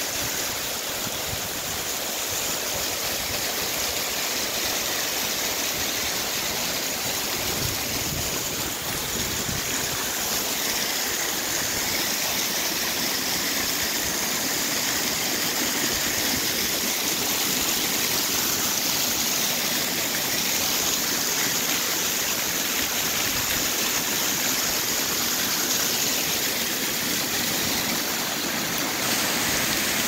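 Small waterfall splashing down over rocks into a rocky stream: a steady rush of falling water.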